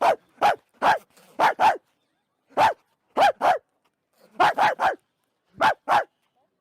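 Barking: about a dozen short, sharp barks, some single and some in quick runs of two or three, with brief silences between.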